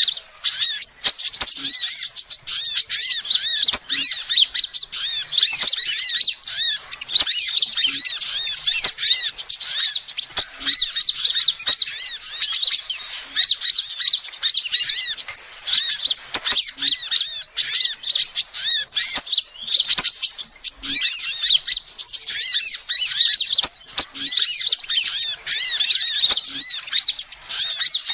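Female sunbird calling nonstop: a dense, rapid stream of high, thin chirps with hardly a pause.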